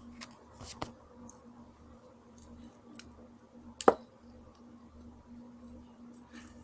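LED fidget spinner handled on a tabletop: a few light clicks and one sharp click about four seconds in, over a faint steady hum.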